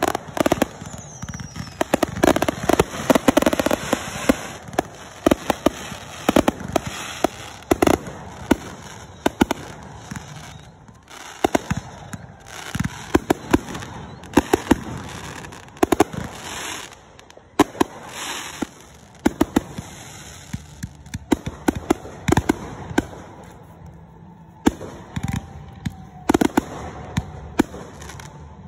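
Aerial fireworks display: shells bursting one after another in an irregular barrage of sharp bangs, with crackling between the reports.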